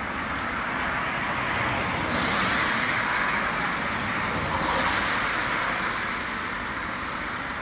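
Road traffic noise: a steady rush of passing vehicles that swells for a few seconds in the middle and then eases.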